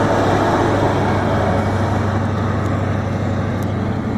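A departing High Speed Train, its rear Class 43 diesel power car running with a steady low engine hum over continuous wheel and rail noise, easing off slightly near the end.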